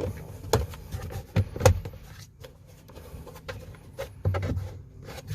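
Plastic cabin air filter cover and dash trim of a Ford F-150 being pushed and clipped into place: a series of sharp plastic knocks and clicks, the loudest about a second and a half in and another group near four seconds.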